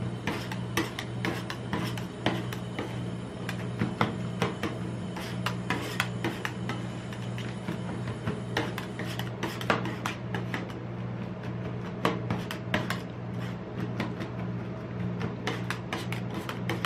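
Two metal spatulas chopping and scraping ice cream on a steel cold plate: quick irregular clicks of the blades striking the plate mixed with rasping scrapes. A steady low hum runs underneath.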